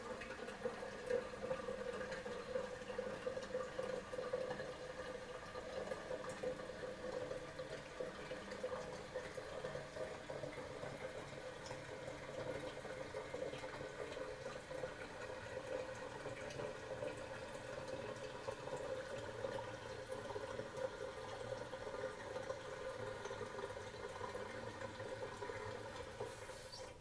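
Toilet cistern refilling after a flush: water running steadily through the fill valve with a steady hissing tone, then shutting off near the end.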